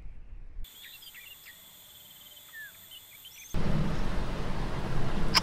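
Quiet outdoor ambience of insects droning on steady high notes, with a few short bird chirps. About three and a half seconds in, it cuts to a much louder rough rushing noise with a low rumble.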